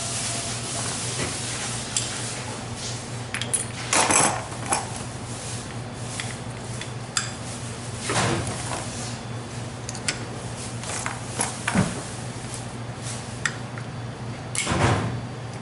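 Metal brake pads and caliper parts handled and fitted by hand: scattered clicks and clinks with a few brief scraping rasps, over a steady low hum.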